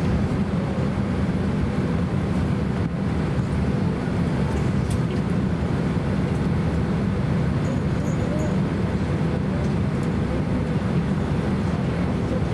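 Steady low rumble and hiss inside the cabin of a Boeing 767-300 airliner during pushback, with a faint steady hum above it.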